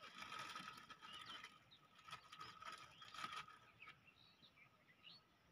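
Near silence in open country: scattered faint clicks and rustles of hands handling something, with a few short bird chirps in the second half.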